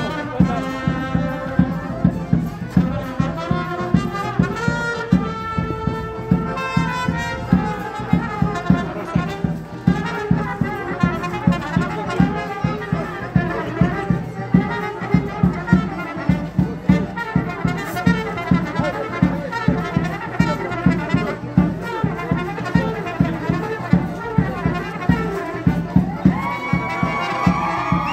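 Brass band music playing a folk circle-dance tune with a steady beat.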